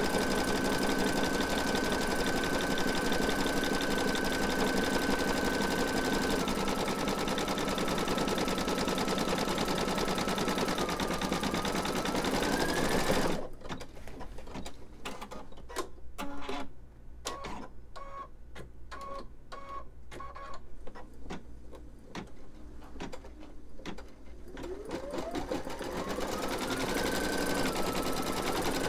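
Computerized embroidery machine stitching a free-standing lace design, its motor running at full speed with a steady whine. About 13 seconds in it drops abruptly to slow, separate stitch clicks for about ten seconds, then speeds back up with a rising whine to full stitching.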